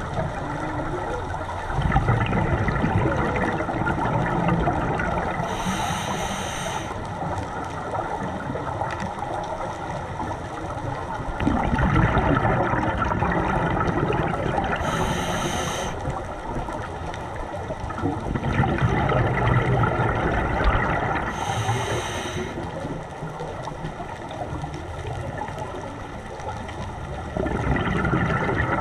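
Scuba regulator breathing underwater: a short hiss with each inhale, then a long bubbling rush as the diver exhales, repeating about every eight or nine seconds.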